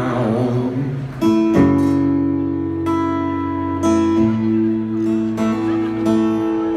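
Acoustic guitar strumming sustained chords, struck about once a second or so and left to ring, starting a little over a second in; a fading sung or chanted voice trails off in the first second.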